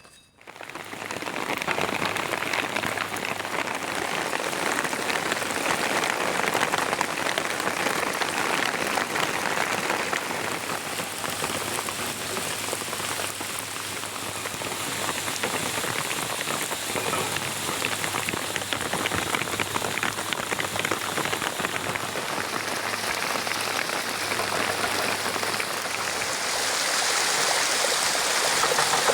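Steady rain falling, a dense patter of drops that starts about half a second in.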